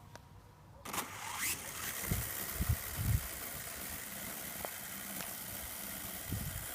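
Parrot AR.Drone 2.0 quadcopter's four electric rotor motors starting up about a second in, with a short rising whine, then a steady high whir as they keep running. A few low thumps come early on in the run.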